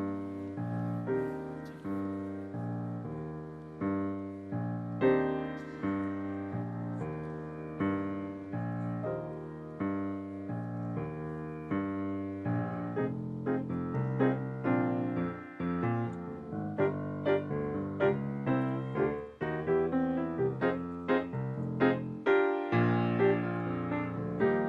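Piano music, slow chords and notes at first, then quicker, denser notes from about halfway through.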